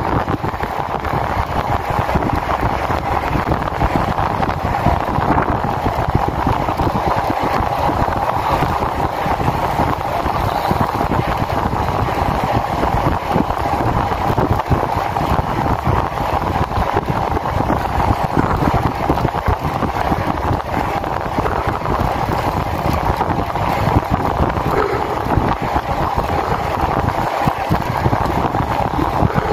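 Steady wind noise buffeting the microphone of a handlebar-mounted phone on a moving road bike, with a constant rushing hum from the ride.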